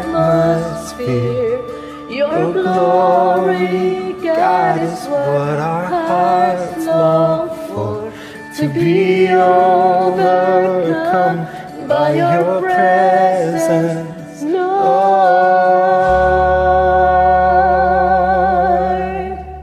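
Man and woman singing a worship song together over a soft instrumental accompaniment, ending on one long held note that begins about fifteen seconds in and fades out at the end.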